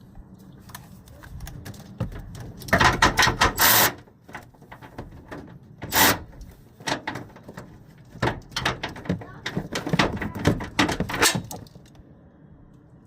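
Metal hand tools clicking and rattling as nuts behind a truck's headlight bezel are loosened. There is a dense burst of clicks about three seconds in, a sharp one around six seconds, and a longer run of clicks from about eight to eleven seconds.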